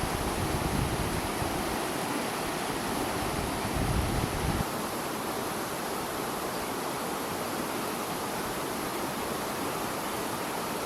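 Fast-flowing stream water rushing steadily, with a heavier low rumble that drops away about four and a half seconds in.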